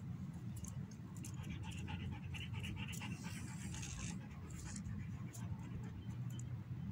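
German Shepherd dog panting, over a steady low rumble.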